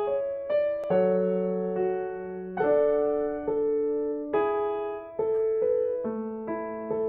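Background music: a slow, gentle piano (electric piano) piece, soft chords struck about once a second and left to ring and fade.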